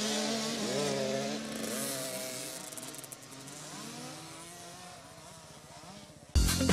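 Small children's motocross bike engines revving, their pitch rising and falling, then fading as the bikes ride away down the dirt track. Near the end an electronic music jingle with a beat cuts in abruptly.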